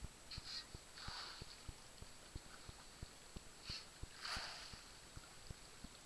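Small waves lapping against the hull of a small fishing boat: soft low knocks about three times a second, with a brief swish about a second in and another past four seconds.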